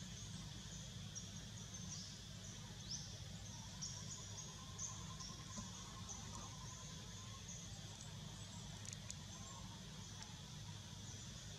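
Tropical tree-canopy ambience: a steady high insect drone with short high chirps repeating throughout, over a low rumble, and a faint thin call in the middle.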